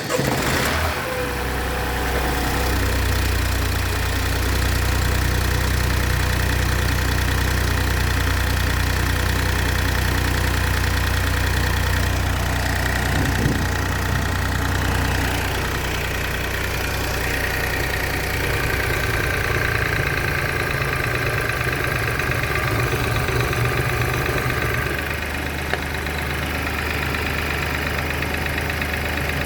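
BMW X1 18i's B38 1.5-litre three-cylinder turbo petrol engine catching on a cold start and then idling steadily, with the ticking sound on cold start that the owner is asking about. The idle note shifts and drops slightly about halfway through.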